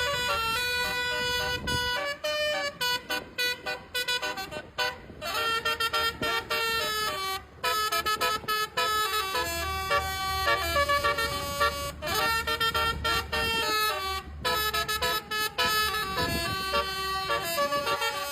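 Bus 'telolet' Basuri horn, a multi-tone air horn playing a tune: strings of short notes stepping up and down in pitch, with brief breaks between phrases, over a low rumble.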